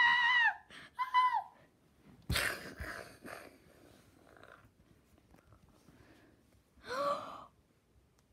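A child's voice making mouth sound effects: two high-pitched squeals in the first second and a half, then breathy gasps and wheezes, and a short voiced cry near the end.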